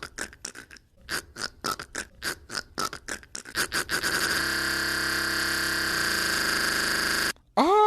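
A man making strange noises with his mouth and voice: rapid chattering bursts, about four or five a second, then a steady buzzing drone. The drone breaks off, and near the end a loud held tone slides up in pitch and holds.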